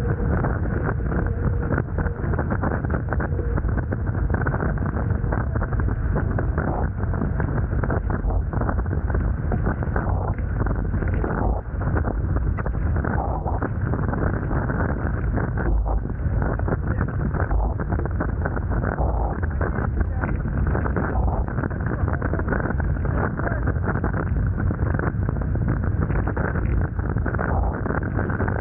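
Steady rushing noise of wind buffeting the camera microphone and water rushing past the hulls of a Hobie Tiger F18 catamaran sailing fast.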